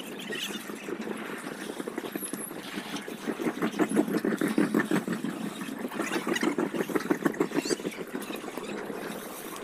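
Indian Railways passenger coaches rolling slowly past a platform, their wheels and running gear giving a rapid, uneven rattle that grows louder about three seconds in.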